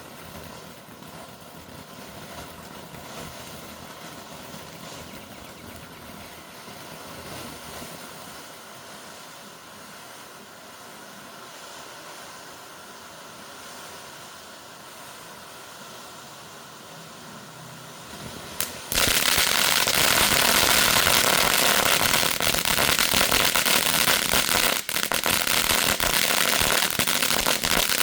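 Low steady background noise, then about two-thirds of the way in a Sky Painter 'Starry Night' 200-gram firework fountain bursts into life: a loud, dense spray of crackles with hiss that keeps on, dipping briefly a couple of times.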